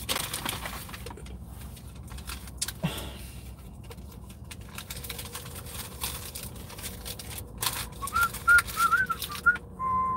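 Rustling and small clicks of things being handled. About eight seconds in, a man starts whistling a short tune through pursed lips, in wavering notes with a held lower note at the end.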